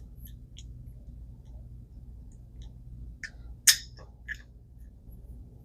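A few small, sharp clicks of metal reel parts being handled as the drive gear is fitted onto the end of the spool of an ABU Garcia Ambassadeur 5501C3 baitcasting reel, the loudest a little past the middle, over a low steady hum.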